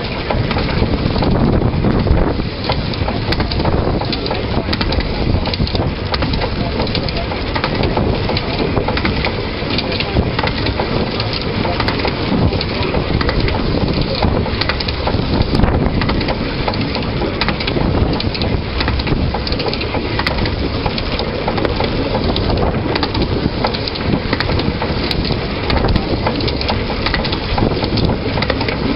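Narrow-gauge railway locomotive running along the line, heard from its front end: a steady rattling clatter of wheels and running gear on the track, with many small knocks throughout.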